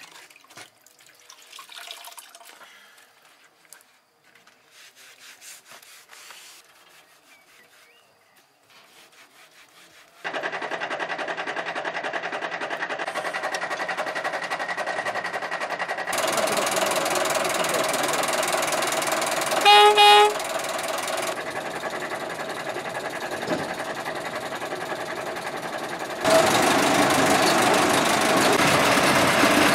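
Faint handling sounds at first, then a small narrow-gauge diesel locomotive's engine running steadily from about a third of the way in, getting louder later. About two-thirds of the way through comes one short horn blast, the loudest sound.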